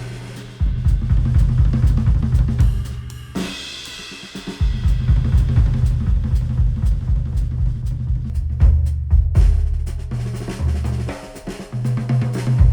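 Instrumental music with a driving drum kit (kick drum, snare, hi-hat and cymbals) over heavy bass, played back through Sennheiser headphones and picked up by measurement microphones. The bass and drums drop out briefly about three and a half seconds in, under a bright wash, then come back.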